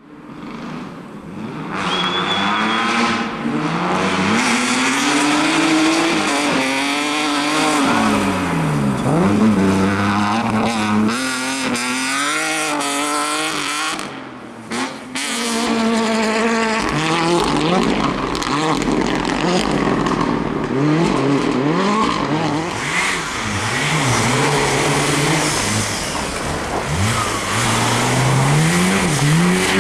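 Rally car engine revving hard, its pitch climbing and falling over and over through gear changes and lifts as the car drives a stage, with a brief dip in the noise about halfway through.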